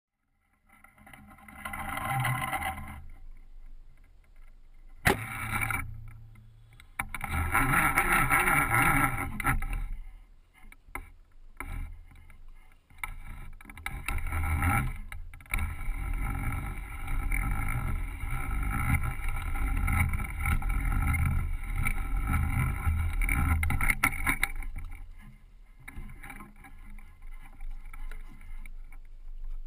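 Water splashing and line-handling noise as an arrowed fish is hauled in on a bowfishing line and dragged up onto the bank. There is a sharp knock about five seconds in, and a long stretch of splashing and rubbing noise in the second half.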